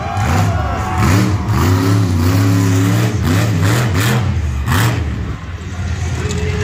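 Monster truck engine revving hard, its pitch climbing and dropping again and again as the throttle is worked, with a few sharp cracks in between.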